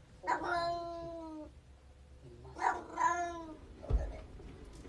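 A domestic cat meowing twice: a long, slightly falling meow of about a second, then a shorter one about halfway through. There is a low thump near the end.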